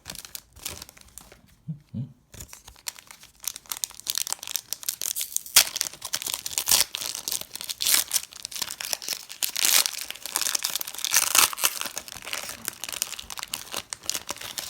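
Pokémon card booster pack wrapper being torn open and crinkled in the hands, a dense run of crackling that starts about two seconds in.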